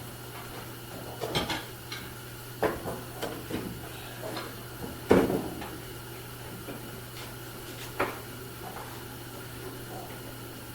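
A bench clamp being set and tightened on a board: a handful of separate knocks and clatters, the loudest about five seconds in and a last one at about eight seconds.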